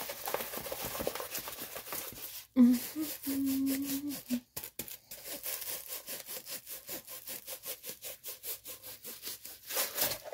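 Quick, repeated rubbing and scraping strokes of a rolled diamond-painting canvas and its plastic wrapping being handled and worked open. A sharp click and a short hummed "mmm" come about two and a half seconds in.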